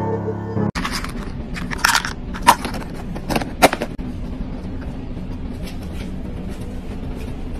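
Dry kibble pieces clicking and rattling against a clear plastic cup held in the hand: a run of sharp clicks, four of them louder, then only faint scattered ticks over a steady low background hum. Music cuts off abruptly just before the clicks start.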